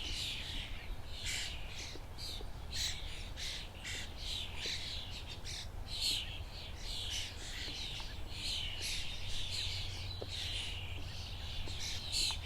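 Many birds chirping, with short, harsh calls overlapping in quick succession, several a second, over a low steady rumble.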